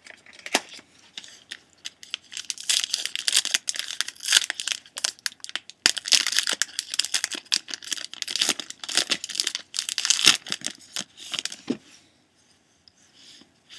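Wrapping on a trading-card pack being torn open and crinkled, a dense run of crackling that dies down near the end.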